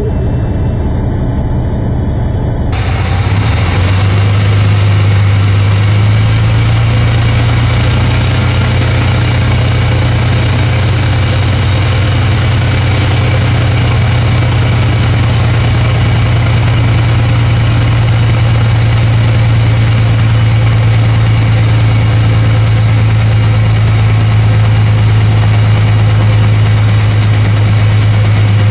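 Freightliner FLD132 Classic's diesel engine running after a jump start, stepping up about three seconds in and again a few seconds later, then holding a steady fast idle. A faint high whine runs over it.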